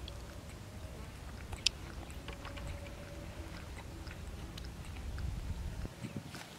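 Baby macaque sucking milk from a feeding-bottle nipple: a run of small wet clicks and smacks, with one sharper click about one and a half seconds in, over a low steady rumble.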